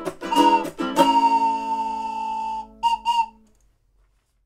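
Ukulele strummed to a final chord that rings out and fades. Over it a whistle held in a neck rack blows one long steady note, then two short toots, before everything stops.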